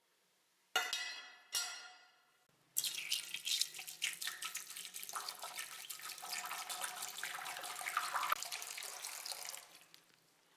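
Two short ringing clinks, then water running from a tap for about seven seconds before it stops.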